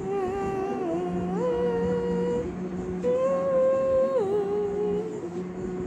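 A young girl singing long wordless notes, like a humming tune. She holds a low note, steps up to a higher one, pauses briefly, holds the high note again, then drops back down.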